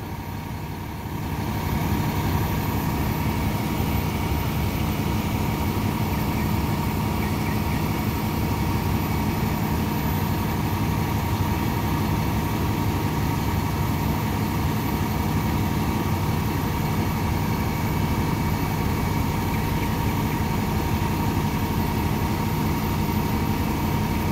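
Aerial ladder fire truck's diesel engine running steadily at raised revs while the truck flows a master stream, with a steady high whine over the engine drone. The level steps up about a second and a half in and then holds.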